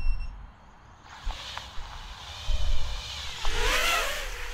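GEPRC Mark IV 5-inch FPV quadcopter flying past close by: its motors and propellers whine, building from about a second in and loudest near the end, where the pitch bends up and then drops as it passes. Low wind rumble buffets the microphone underneath.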